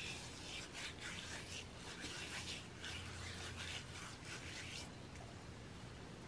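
Faint rubbing of salt scrub into the skin on the back of a hand, gritty scratchy strokes about two or three a second, dying down about five seconds in.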